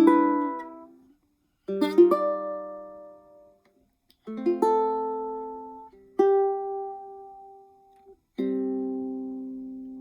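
PCH ukulele played fingerstyle: short phrases of plucked notes that ring out and fade, with brief pauses between them, ending on a held chord that rings through the last second and a half.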